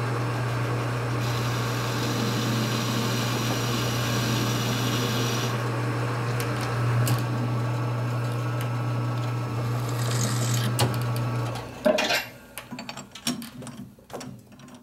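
Metal lathe running steadily, with a higher cutting sound from about one to five seconds in as the tool faces down a machined collar. The motor shuts off about twelve seconds in, followed by a sharp knock and light metallic clicks as the chuck and part are handled.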